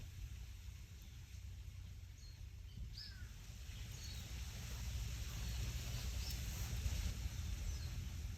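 Wind rumbling low on the microphone, with short, high bird chirps every second or so.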